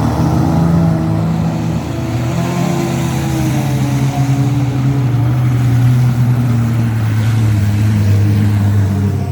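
Demolition derby car engines running and revving, the main engine note sliding slowly lower over the middle and later part.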